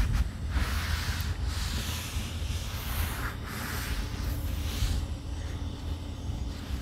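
Oil-soaked towel held in tongs wiped in strokes across a hot flat-top steel griddle, applying a seasoning coat of oil: a series of swishing, hissing strokes about once a second that stop about five seconds in, over a steady low rumble.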